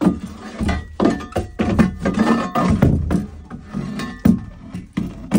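A quick run of thumps and knocks, about a dozen in five seconds, as tools and boards are shifted about inside a chicken coop.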